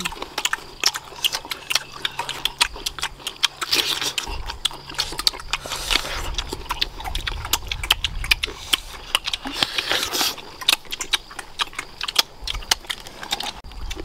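Ripe mango being bitten and chewed with the mouth close to the microphone: many quick, irregular wet clicks and smacks of juicy fruit flesh.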